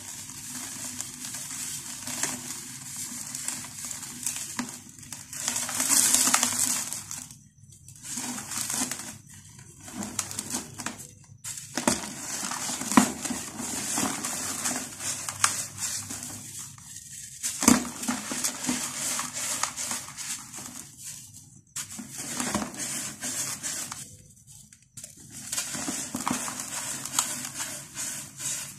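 Dry, dusty dirt block moulded in a glass being crushed and crumbled by hand, with crunchy crackling and the gritty hiss of powder sifting through the fingers into a plastic basin. It comes in spells with short pauses between, with a few sharper cracks as pieces break off.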